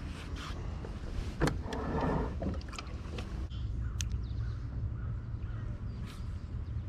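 Handling noises in a fishing kayak after landing a rock bass: a few sharp clicks and knocks and a short rustling noise about two seconds in, over a steady low rumble of wind on the camera microphone.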